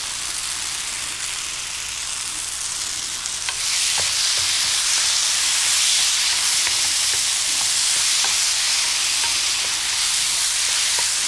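A spiced tomato mixture sizzling in a frying pan on a portable gas burner while a wooden spatula stirs it, with a few light scrapes of the spatula. The sizzle grows louder about three and a half seconds in.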